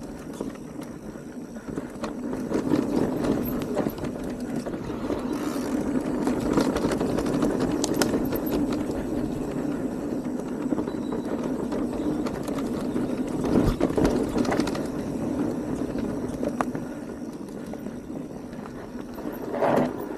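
E-mountain bike (Radon DEFT 10) riding down a dirt singletrail: tyres rolling over the ground with a steady rumble, the bike rattling and clicking over roots and stones, and a heavier knock about two-thirds of the way through.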